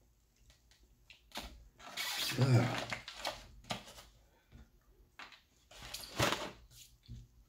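A low burp about two seconds in, among the creaks, squeaks and clicks of a styrofoam takeout clamshell and plastic fork being handled, with the foam lid pressed shut with a loud squeak about six seconds in.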